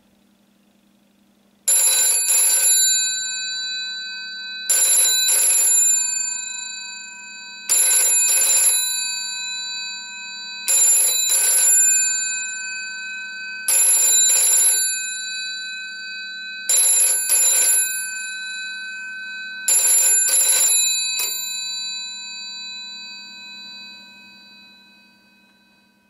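Electromechanical bell of a 1980s UK GPO 746-style rotary dial telephone ringing in the British double-ring pattern. It gives seven ring-rings about three seconds apart, the last one cut short, then the gongs ring on and fade away.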